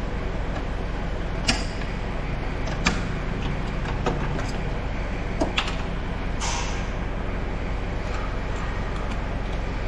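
Hand tools clicking on metal parts in a car's engine bay: a handful of sharp clicks and a short scrape a little after six seconds in, over a steady low background hum.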